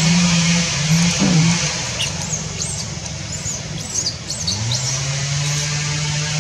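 A motor engine's steady low drone, its pitch stepping up and down and then rising to hold steady, with a short run of high chirps about halfway through.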